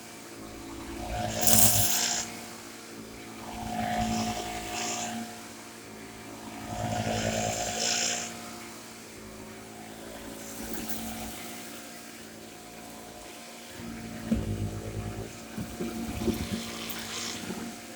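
Shark corded upright vacuum cleaner's motor running steadily, with three rushes of hissing air in the first half and irregular crackling clicks near the end.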